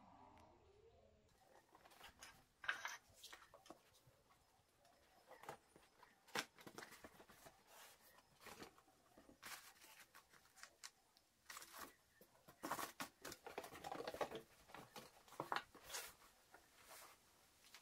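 Quiet scattered rustles, scrapes and light taps as a cardboard box is handled and opened and a paper instruction manual is taken out and moved.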